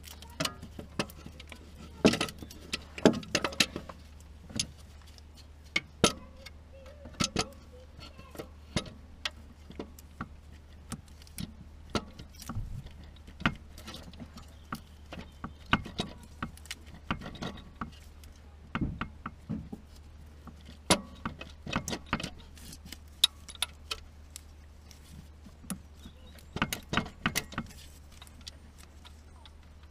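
Irregular metallic clinks and knocks, some in quick clusters, as an alternator is manoeuvred back onto its mounting in a car's engine bay, over a steady low hum.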